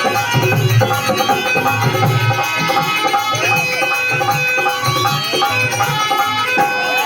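Indian traditional music: a hand drum plays a steady rhythmic beat under held melodic tones, the kind that accompanies a kathputli puppet dance.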